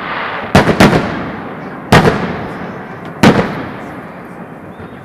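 Aerial firework shells bursting: four sharp bangs, two in quick succession about half a second in, one near two seconds and one just after three seconds, each followed by a rolling echo that dies away.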